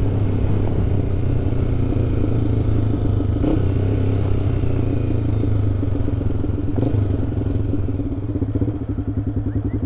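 Honda CBX 250 Twister's single-cylinder four-stroke engine running at a steady, gentle cruise through a Roncar aftermarket exhaust. Near the end the revs drop, and the exhaust beats come through one by one.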